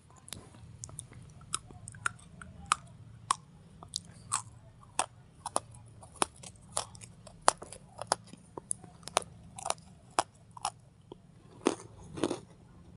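Crunchy chewing: irregular sharp crunches and clicks, two or three a second, over a faint steady low hum.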